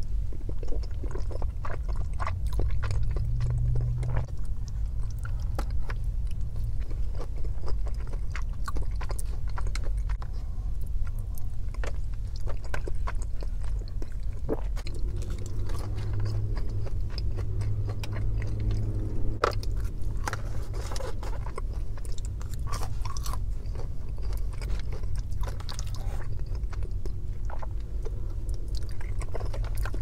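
Close-miked chewing and mouth sounds of someone eating soft food, macaroni and cheese and chicken and dumplings, with a black plastic fork scraping and clicking against a plastic takeout bowl. A steady low hum runs underneath.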